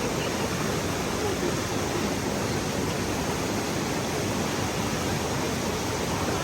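Steady rushing water, an even hiss that holds level throughout.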